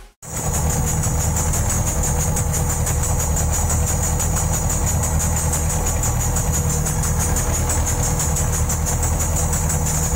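Mitsubishi PS 100 four-cylinder diesel boat engine running steadily with the boat under way.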